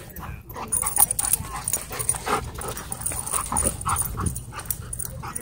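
Dogs chasing and wrestling in play, with a string of short, irregular dog vocal noises over a low rumble.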